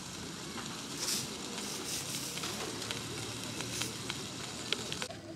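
Steady sizzling and crackling from a small fire under a grill cooking a foil-covered beer-can chicken, with scattered sharp pops and a few brief louder hisses.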